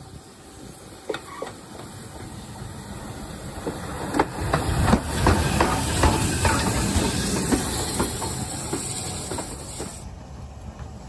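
A 4MT steam locomotive drifts into a station with steam hissing, the clank of its motion and wheels clicking over rail joints. The sound swells to its loudest about halfway through, then fades.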